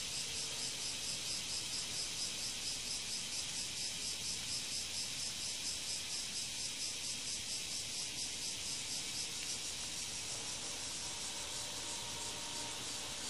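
A steady, high-pitched insect chorus buzzing with a fast, even pulse.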